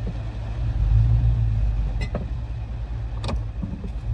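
Steady low rumble of a pickup truck's engine and road noise heard from inside the cab while driving, with a couple of brief sharp clicks partway through.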